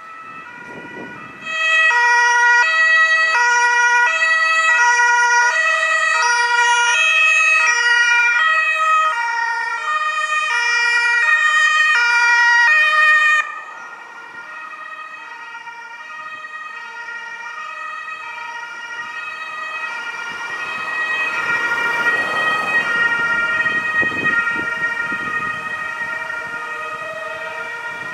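German two-tone emergency vehicle siren (Martinshorn), alternating between a high and a low note, as emergency vehicles drive past on a call. It comes in loud about a second and a half in and cuts off abruptly around halfway. A fainter two-tone siren then goes on, with the engine and tyre noise of a vehicle swelling as it passes near the end.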